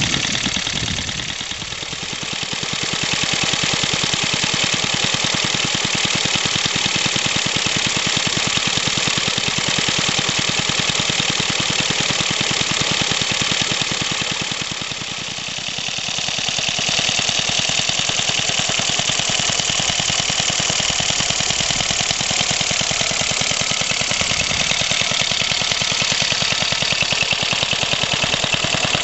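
75cc Suffolk two-stroke stationary engine running steadily with a fast, even beat while driving a small air compressor that feeds a model steam car. About halfway through, a higher hiss becomes stronger.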